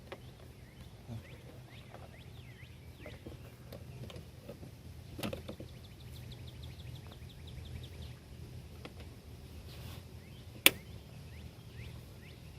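Small clicks and taps of a screwdriver working the screw of a car's front bumper turn-signal housing, with one sharp click about ten and a half seconds in, over faint high chirping.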